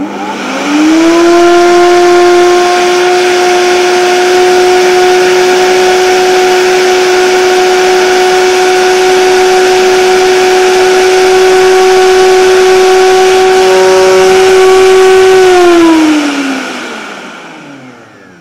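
Oster Versa 1400-watt blender on low speed, milling crystal sugar into fine powdered sugar. The motor spins up in the first second to a steady whine, runs for about fifteen seconds, then winds down with a falling pitch near the end.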